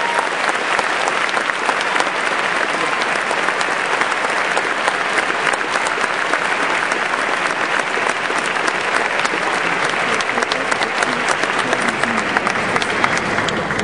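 Audience applauding: many hands clapping steadily at the end of a speech, beginning to fade near the end.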